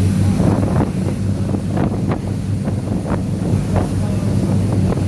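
Boat engine running with a steady low drone, with wind buffeting the microphone and short rushes of noise coming every half second or so.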